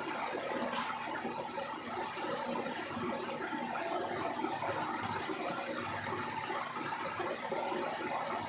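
Steady background hum and hiss with no distinct events, like a machine running in a small room.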